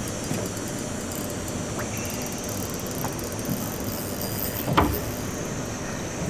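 Steady rumble of a small fishing boat's motor idling, with one sharp thump a little under five seconds in.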